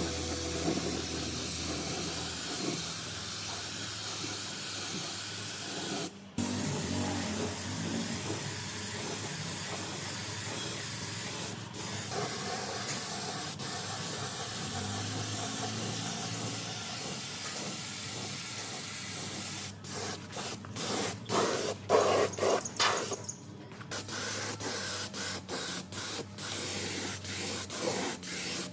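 Spray hissing in a steady stream, cut off briefly twice. In the last third it stops and starts in many short bursts.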